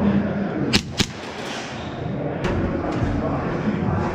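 Two sharp airsoft gas blowback pistol shots, about a quarter second apart, then a couple of fainter clicks.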